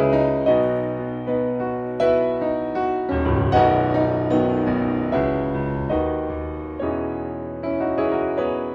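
Soundtrack music: a piano or electric piano playing slow chords, each struck and left to fade.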